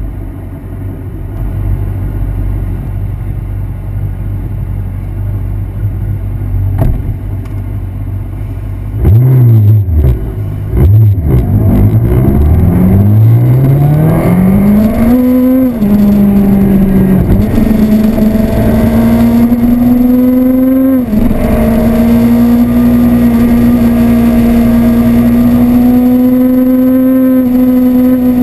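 Yamaha R1 sportbike's inline-four engine idling, then blipped a few times about a third of the way in before accelerating hard. Its pitch climbs through the gears with two upshifts, then holds at a steady high rev.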